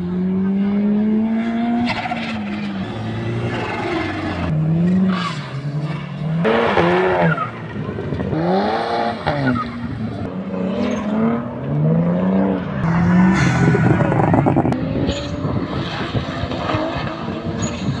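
Turbocharged rally cars, first a boxer-engined car and then a Volkswagen Golf with a TFSI turbo four-cylinder, revving hard through a cone course. The engine note rises and falls again and again through throttle blips and shifts, with tyre squeal and the stuttering turbo flutter of compressor surge each time the throttle snaps shut.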